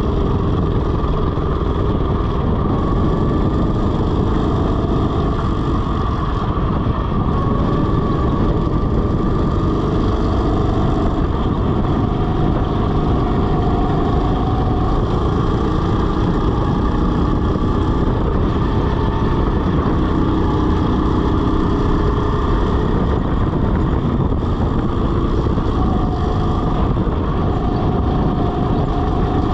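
Rental go-kart driven at racing speed: a continuous motor drone whose pitch drifts up and down with speed, over a heavy rush of wind and road noise.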